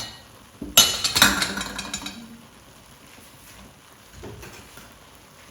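Metal clattering against a cooking pot of rice: a quick cluster of clinks and scrapes lasting about a second and a half, then a faint knock about four seconds in.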